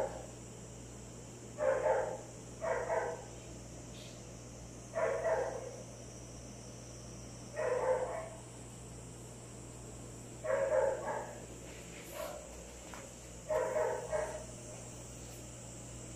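A dog barking: short single barks every couple of seconds, about eight in all, a few coming in quick pairs.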